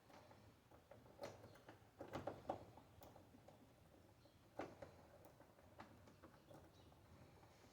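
Faint, irregular metallic clicks and light scraping of a lock-pick rake worked back and forth in a five-pin tumbler lock cylinder under light tension-wrench pressure, as the pins are raked toward setting. A quick run of clicks comes about two seconds in, with a sharper single click about four and a half seconds in.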